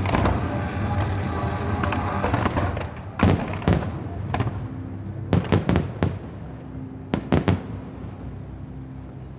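Music plays for the first couple of seconds and then fades out. A string of sharp firework shell bursts follows: three separate bangs, then a quick run of four, then three close together about two-thirds of the way through, each one echoing briefly.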